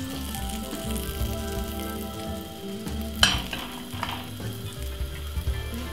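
Pancake batter sizzling in a buttered non-stick frying pan, with a single sharp click about three seconds in.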